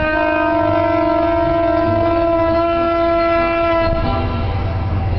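Diesel locomotive horn held in one long steady blast that cuts off about four seconds in, over the low steady rumble of the train running.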